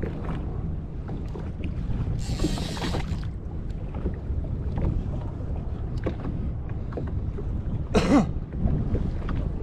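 Wind rumbling on the microphone and sea water slapping against a jet ski's hull, with a short hiss about two seconds in and a brief louder pitched sound near the end.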